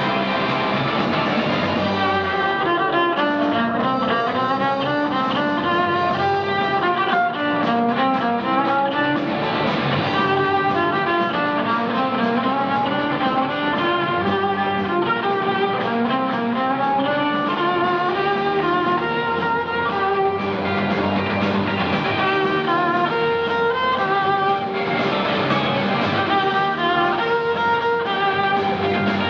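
A violin playing a lively melody of quick, running notes over a lower accompaniment.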